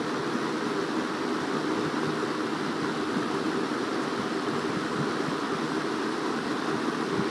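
Windsor C-14 box fan running on high speed: a steady, even rush of air from the blades.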